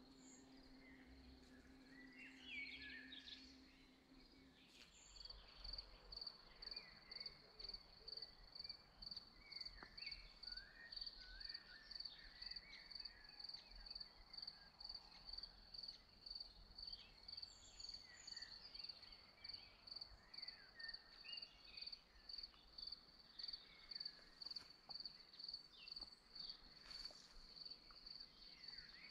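Faint outdoor ambience: a cricket chirping in an even, fast rhythm from about five seconds in, with scattered birdsong around it. A low hum runs under the first few seconds and stops about four seconds in.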